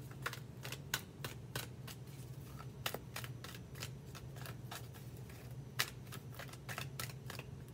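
A tarot deck being shuffled overhand by hand: short, irregular card clicks and slaps, over a faint steady low hum.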